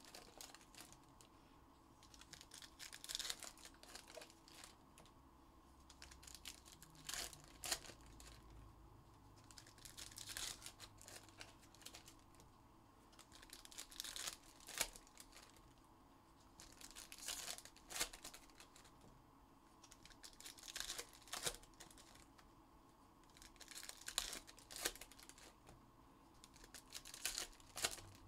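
Trading card pack wrappers being torn open and crinkled, one after another, with a short burst of ripping and crackling about every three to four seconds.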